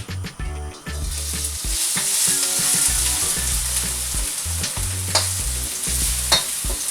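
Chopped onion sizzling in hot oil in a wok; the sizzle swells in about a second in and holds steady, with a few sharp clacks of a utensil stirring.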